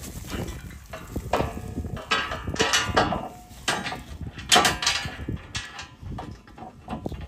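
Steel bash plate clanking and scraping against the vehicle's underbody as it is lifted and pushed into place: a run of irregular metal knocks, the loudest about four and a half seconds in.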